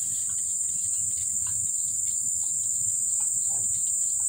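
A steady, high-pitched insect chorus, with faint, irregular soft ticks of a cat lapping water from a plastic tub.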